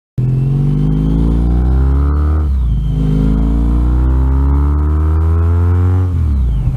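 Honda ST sport-tourer's V4 engine accelerating hard through the gears: the revs climb, drop at an upshift about two and a half seconds in, climb again, and fall away near the end.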